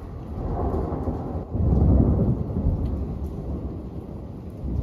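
Thunder rumbling over steady rain: a deep roll swells about a second and a half in, then slowly dies away while the rain hiss carries on.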